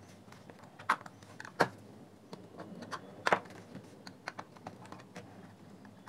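A flat metal pry tool clicking and scraping in the seam between an iPod's plastic front shell and its steel back as the case is pried open. The clicks are scattered and irregular; the loudest fall about a second in, a second and a half in, and a little after three seconds.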